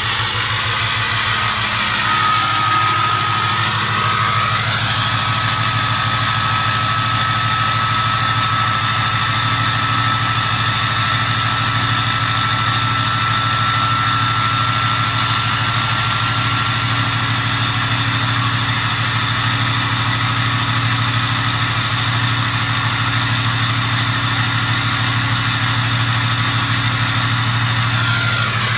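Ford 6.0 Powerstroke V8 turbo-diesel running steadily at high idle, with a steady high whistle from its 2003-type turbocharger over the engine's rumble. The whistle settles in about two seconds in, after some brief pitch glides.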